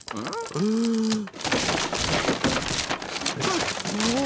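Flat-pack wooden furniture collapsing in a cartoon: a long, dense clatter of falling boards and panels, starting after about a second and a half. It follows a short held vocal 'ooh', and a brief vocal sound comes over it near the end.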